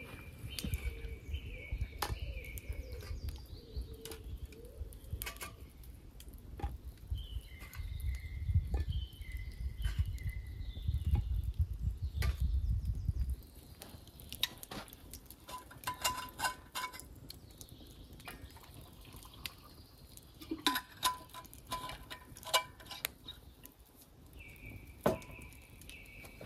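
Outdoor camp sounds: scattered sharp clicks and small clinks, with clusters of clinking twice in the second half. Birds call in short whistled phrases now and then. A low rumble fills the first half and stops abruptly about halfway through.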